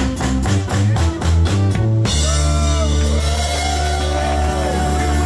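Live rock band of acoustic guitar, electric bass and drum kit playing a driving beat; about two seconds in the drums stop and the band holds a long sustained chord while a high line bends and wavers over it.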